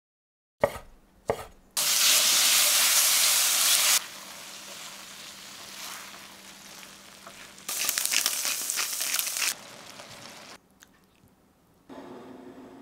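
Food sizzling in a hot frying pan in two loud stretches, with quieter spatula stirring between them; two sharp clicks come just before the first sizzle.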